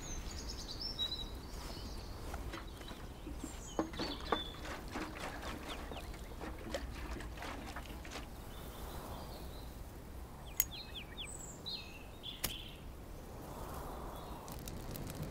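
Birds chirping in short calls over a quiet, steady outdoor background, with a few sharp clicks scattered through.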